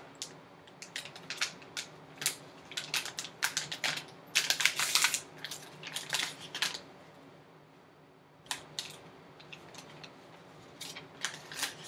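Foil trading-card pouch crinkling and tearing open by hand: a rapid run of sharp crackles, a short pause, then more crackling as it is pulled apart.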